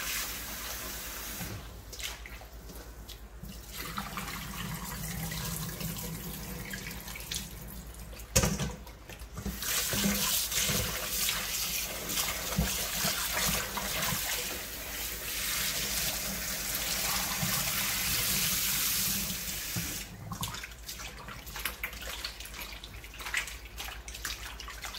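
Kitchen tap running into a stainless steel bowl in a steel sink while hands knead and rinse chicken gizzards in the water. A sharp knock comes about a third of the way in, and the stream briefly drops. Near the end the running water stops, leaving short wet splashes and clicks from the kneading in the bowl.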